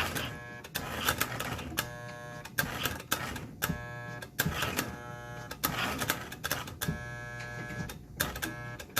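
American Flyer #282 S-gauge steam locomotive running on track: a motor hum with mechanical clicking and clattering, starting and stopping repeatedly. The uneven running comes from stiff tender wiring that lifts the tender off the rails and cycles the reverse unit.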